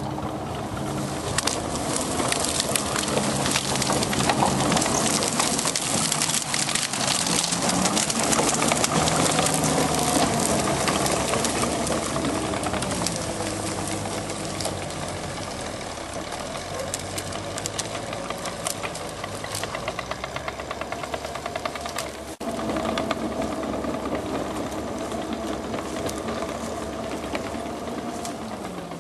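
1945 M29 Weasel tracked vehicle running under way, its Studebaker six-cylinder engine speed rising and falling, with a dense clatter over the top.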